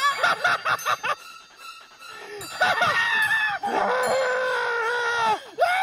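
A person's high-pitched shrieks: a few short cries at first, then one long scream of about three seconds that falls off at the end.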